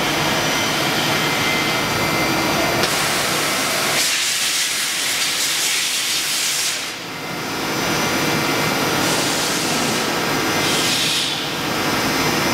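DMU 70 eVolution five-axis machining centre running its swivelling rotary table through tilt and rotation moves: a steady machine hiss with faint drive tones. The hiss turns brighter about four seconds in, dips briefly near the middle, and swells again near the end as the table moves.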